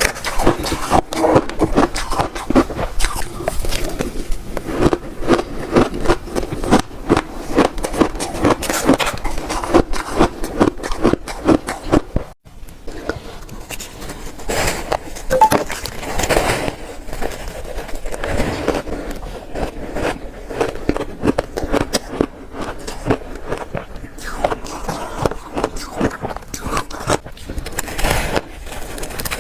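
Close-miked biting and chewing of shaved ice: dense crunching and crackling, with a short break about twelve seconds in.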